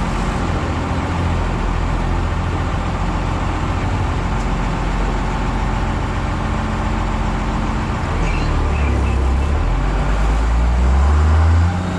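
Vehicle engine running steadily. A low rumble builds louder about eight seconds in, with a brief rise in pitch near the end.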